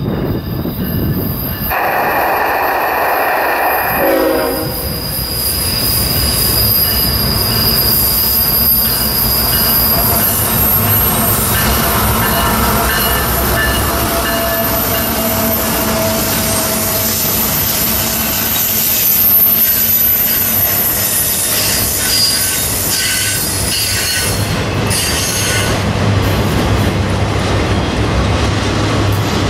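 A freight locomotive horn sounds one blast of about two seconds near the start. Then CSX GE diesel locomotives pass close by, followed by a long string of autorack cars rolling past with steady high-pitched wheel squeal and rail clatter.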